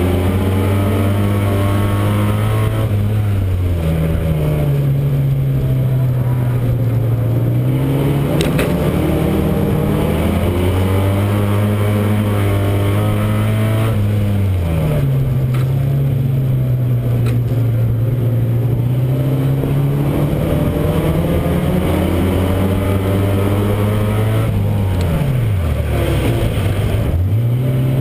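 Euro Rod racing car's engine heard from inside the car at racing speed. The revs hold, drop and climb again several times as the driver lifts and reapplies throttle around the oval, with a quick deep dip and pickup near the end.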